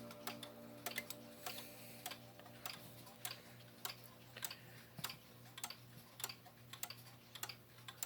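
Korean-made movement of a Waltham 31-day wall clock ticking steadily, its escapement giving a sharp click a little under twice a second. The last of a ringing chime tone fades out in the first second.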